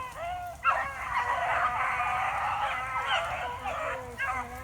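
A pack of beagles baying together on a rabbit's scent trail, many overlapping cries swelling into a steady chorus about a second in.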